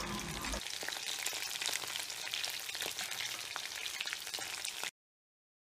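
Pieces of batter-coated chicken deep-frying in coconut oil in a wok, a steady sizzle full of fine crackles. It cuts off suddenly about five seconds in.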